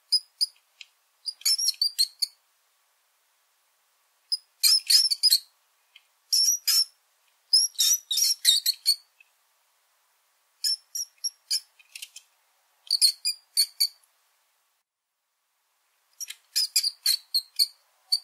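Small rodent squeaking: rapid high-pitched squeaks in clusters of several at a time, about seven clusters separated by silent gaps of up to a couple of seconds.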